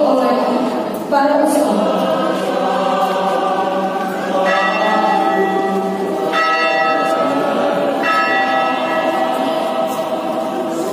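Choir singing, with a bell struck several times about two seconds apart, each stroke ringing on over the singing.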